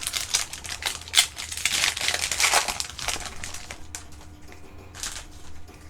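Crinkling of a foil Pokémon booster pack wrapper being handled, dense for the first three seconds, then lighter rustles and clicks with one short crinkle about five seconds in.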